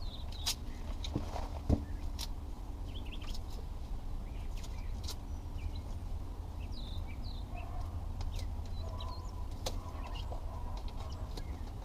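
Birds chirping in the background over a steady low rumble, with a few sharp clicks and taps scattered through, the loudest about two seconds in.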